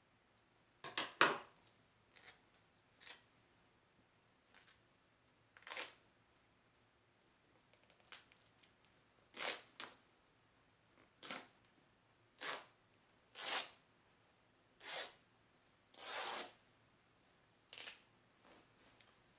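Scissors snipping through skirt fabric, then the cloth being pulled and torn apart by hand: about a dozen short, separate rasping bursts with quiet between, the later ones longer.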